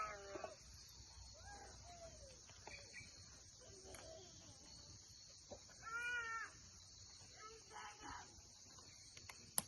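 Chickens calling in short, widely spaced cries: one at the start, a louder one about six seconds in, and another around eight seconds. A single sharp click comes near the end.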